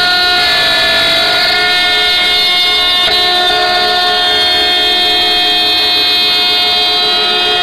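Water-cooled spindles of a four-axis rotary CNC engraving machine whining at several steady pitches while the router bits carve wood.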